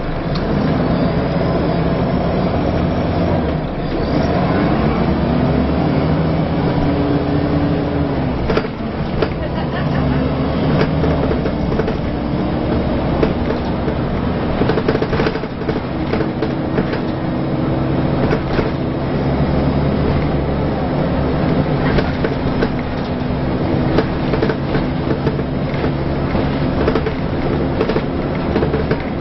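Inside a Scania L94UA articulated bus on the move: the diesel engine and ZF automatic gearbox pull up through the gears, their whine rising and dropping back at each change. Frequent rattles and squeaks come from the bendy bus's body and fittings.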